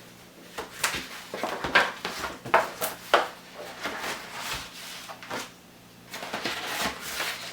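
Packaging being opened and handled: scattered sharp clicks, taps and crinkling rustles of paper and plastic, growing denser near the end.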